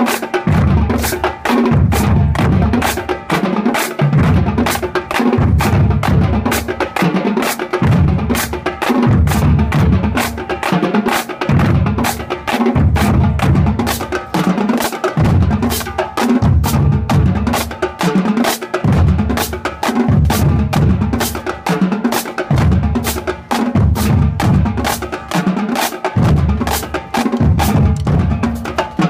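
A drumline playing: fast, sharp snare and rim strokes over bass drums pulsing in a steady beat about once a second.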